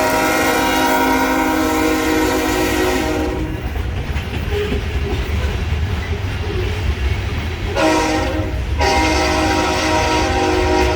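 Diesel locomotive air horn sounding a multi-note chord: one blast cuts off about three seconds in, a short blast comes about eight seconds in, and another long blast starts just after it. The low rumble of the moving train runs underneath throughout.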